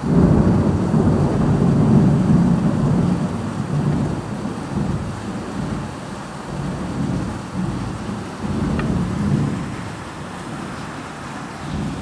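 Thunder rumbling over steady heavy rain. The rumble breaks suddenly, rolls on in uneven swells, swells again about nine seconds in, then fades.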